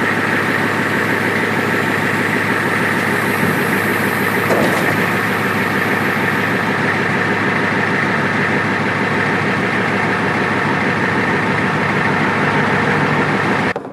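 Dump truck engine idling steadily while the bed is lowered, with a faint knock about four and a half seconds in.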